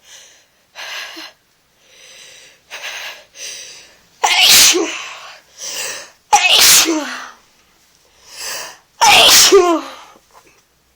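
A person with a head cold sneezing three times, about two seconds apart, after several sharp in-breaths. Each sneeze is loud and sudden, with a voiced cry that falls in pitch.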